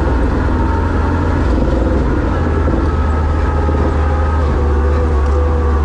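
Monster truck's engine running steadily while driving, heard from inside the cab, with a deep, even rumble.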